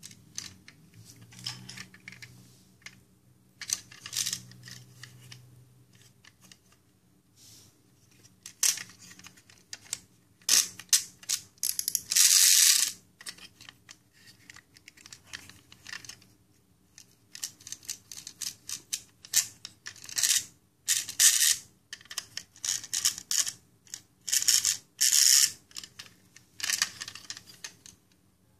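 Plastic wind-up toy car handled in the hands, its clockwork mechanism giving repeated short bursts of clicking and whirring with pauses between, amid light plastic clatter.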